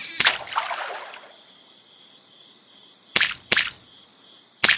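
Sound effects of an animated intro: a sharp swish right at the start that trails off over about a second, two more quick swishes just after the three-second mark and another just before the end, over a thin, high, steady pulsing chirr.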